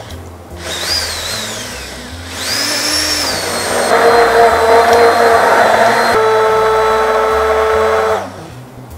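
Professional immersion (stick) blender running in a bowl of chocolate pastry cream, blending it smooth. A short first burst with a falling whine, then a longer steady run from about two and a half seconds that grows louder and churning from about four seconds and cuts off near the end.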